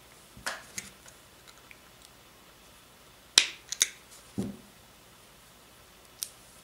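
Small 3D-printed plastic parts handled and set down on a tabletop: a handful of sharp clicks and taps, the loudest a pair about three and a half seconds in, followed by a duller knock.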